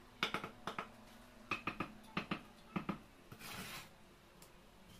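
Mason's steel trowel tapping a freshly laid concrete block, clusters of sharp taps that bed it down into the mortar, then a short scrape of the trowel about three and a half seconds in.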